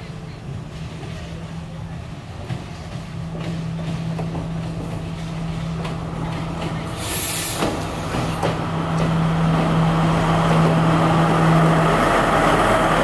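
Diesel engine of a Sri Lanka Railways Class S12 power car arriving and passing close by, a steady low drone that grows louder as it nears. A brief burst of air-brake hiss comes about seven seconds in.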